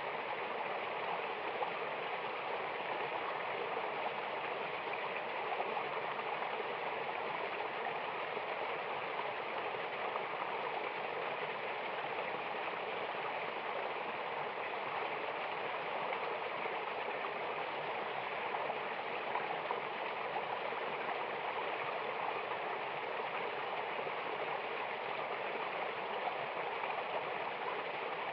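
Steady, unbroken rush of water pouring down a mountain waterfall.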